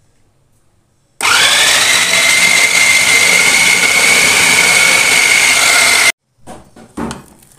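Electric food processor switched on about a second in, its motor whining up quickly to a steady high pitch as it grinds meat, chana dal and raw eggs into shami kabab paste. It cuts off suddenly about six seconds in, followed by a few light knocks and clicks.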